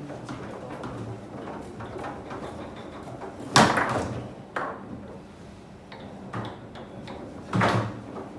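Foosball table in play: sharp knocks and clacks of the ball and rods. The loudest knock comes about three and a half seconds in, another a second later and one more near the end, with lighter clicks between.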